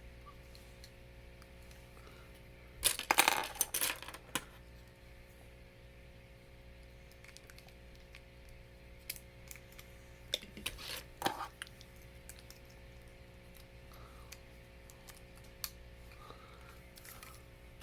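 Plastic Lego pieces clicking and rattling as they are handled and snapped together, with a dense run of sharp clicks about three seconds in and scattered single clicks later, over a faint steady hum.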